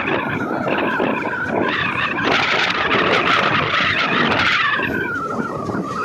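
Paharia Express passenger train running on the rails, a steady rumble and rattle with many small clicks. A hissing, screeching noise swells up from about two seconds in and dies away near five seconds.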